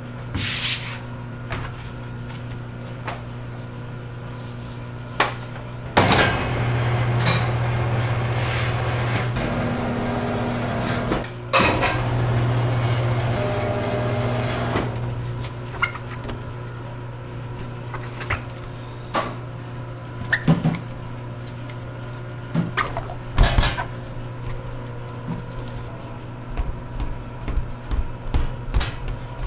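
Kitchen clatter: scattered knocks and clicks of utensils, trays and pans over a steady low machine hum that grows louder twice for several seconds.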